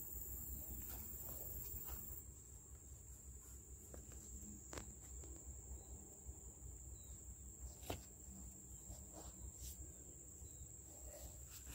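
Faint outdoor ambience: a steady high-pitched insect song, with a low background rumble and a few faint clicks.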